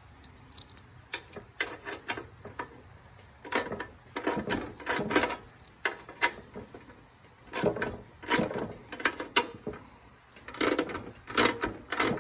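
Ratchet wrench clicking in several short runs as it turns the bolt holding the dipstick tube on a Briggs & Stratton mower engine, with quiet pauses between the strokes.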